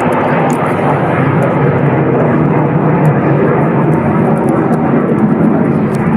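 Jet engines of a flight of three Eurofighter Typhoon fighters passing overhead: a loud, steady rumbling rush of noise that does not let up.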